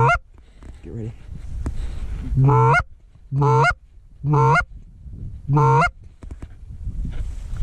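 Canada goose honking: five loud, short honks about a second apart, each breaking upward from a low note to a higher one.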